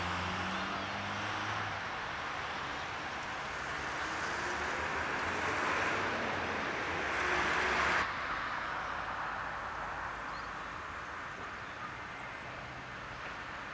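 Outdoor ambience near a railway, picked up by a camcorder microphone. A low, steady engine hum is heard at first, then a broad rushing noise builds and cuts off abruptly at a tape edit about eight seconds in. Quieter general background noise follows.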